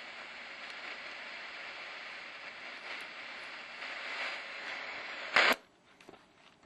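Shortwave radio hissing with static, no voice coming through. About five and a half seconds in there is a short loud burst of crackle, and then the hiss cuts out to near quiet.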